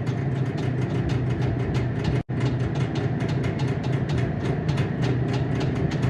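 IZh Jupiter-4 air-cooled two-stroke twin engine running steadily at idle with a rapid, even beat. The exhaust elbows at the cylinders are leaking gas. The sound drops out for a moment about two seconds in.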